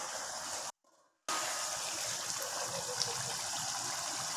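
Chicken curry with added water simmering in a pan, a steady bubbling hiss with a few small pops, broken by a half-second gap of silence about a second in.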